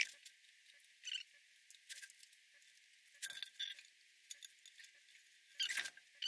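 Sped-up time-lapse audio of seam-sealing work on a car body: scattered short, thin, high-pitched squeaks and clicks, with the loudest cluster near the end.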